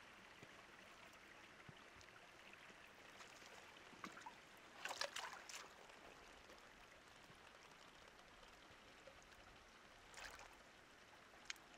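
Faint, steady trickle of flowing stream water. A few brief, louder noisy sounds break in over it about four to five seconds in, again near ten seconds, and as a single click just before the end.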